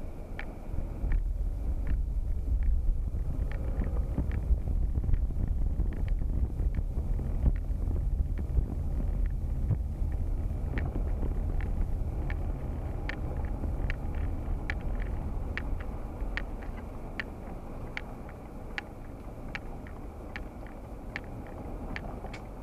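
Car driving in slow traffic, heard from inside the cabin: a low engine and road rumble that rises as the car moves off about a second in and eases as it slows near the end, with light, repeated ticking throughout.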